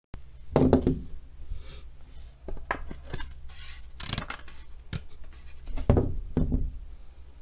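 Hand work on an object: a few sharp knocks and scraping rubs over a steady low hum, the loudest about half a second in and again about six seconds in.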